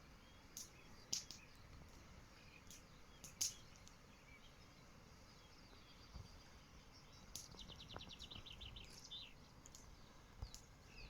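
Faint songbird chirps scattered throughout, with a short rapid trill a little past halfway, over a low steady outdoor hiss.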